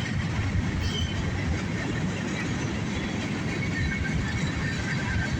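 Freight cars of a CSX freight train rolling past at steady speed: a continuous rumble of steel wheels on rail. A faint high squeal joins in about halfway through.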